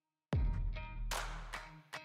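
Background music: after a brief silence, a beat with deep bass hits starts about a third of a second in.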